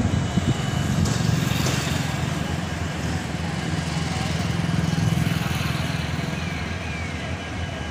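Low rumble of a passenger train's coaches rolling away along the tracks, swelling to about five seconds in, then easing.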